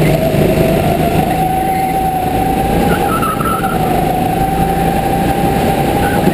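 Go-kart motor heard from on board, running hard at steady high revs. Its pitch climbs slightly as the kart comes out of a corner, then holds level down the straight.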